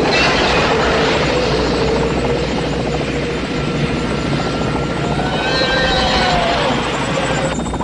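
Helicopter-like rotor noise, steady and loud, with whining tones that glide down near the start and rise again about two-thirds of the way through.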